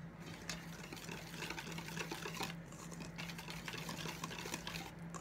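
Wire whisk beating flour into chocolate cake batter in a stainless steel bowl: fast, continuous scraping and clicking of the wires against the metal.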